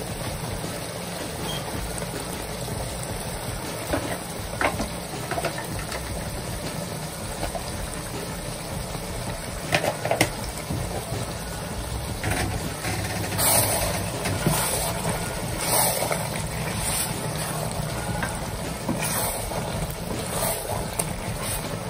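Turnip curry simmering in a pan over a gas burner, with a steady rumbling hiss throughout. A wooden spoon knocks against the pan a few times and scrapes through the curry as it is stirred, most busily in the second half.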